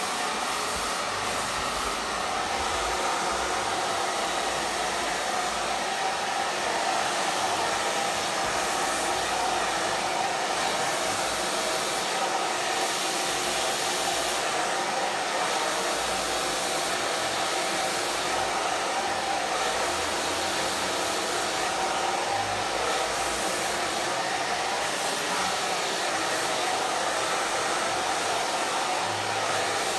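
Handheld hair dryer running steadily, blowing onto hair wrapped around a round brush.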